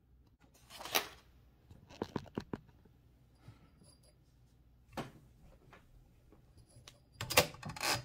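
A sheet of typed paper rustles as it is handled about a second in, followed by a few light clicks and a single knock. Near the end comes a quick run of clicks and rattles as hands take hold of the carriage and platen knob of a 1925 AEG Mignon 4 index typewriter.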